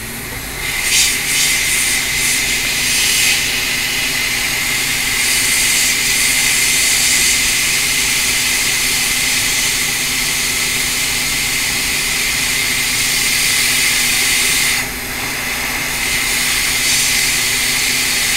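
Hot air rework station blowing steadily on a laptop logic board: a rushing hiss with a low hum from its blower, dipping briefly about fifteen seconds in. It is melting the solder on the pads to seat a replacement capacitor.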